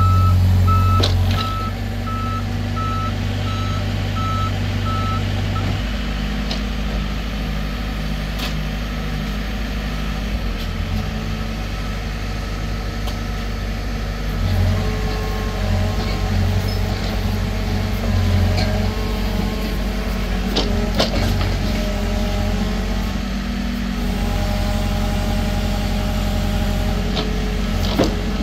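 Heavy earthmoving machinery running on diesel engines, with a reversing beeper sounding a steady string of beeps for about the first six seconds and then stopping. The engine note shifts up and down as the machines work, and there are a few sharp metal knocks.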